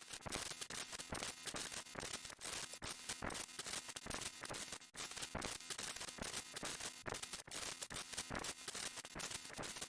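Sound effect made of a dense, irregular run of sharp clicks and crackles, many per second, with a brief dip just before the five-second mark.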